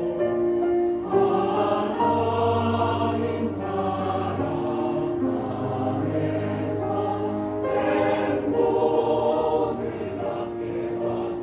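A mixed choir singing a slow Korean hymn in Korean, with piano and synthesizer accompaniment and a low note held under the voices for a couple of seconds.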